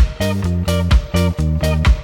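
Background music: a funky guitar-and-bass groove with a steady drum beat, about two hits a second.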